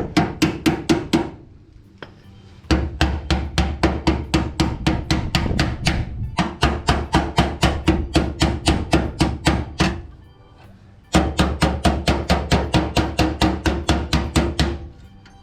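Hammer tapping a steel sheet patch panel to shape it: quick, even, ringing strikes about five a second, in four runs with short pauses between.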